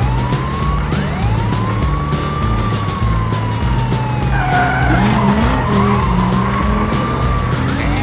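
Police-car siren wailing, its pitch rising and falling slowly in long sweeps, over a low stepping bass line of background music.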